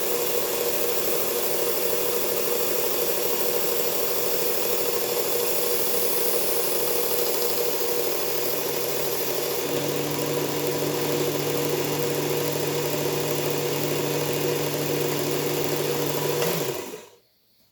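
Powered belt sharpener running steadily with a hum and abrasive hiss while a knife edge is ground on the belt. A lower hum joins about ten seconds in, and the sound cuts off near the end.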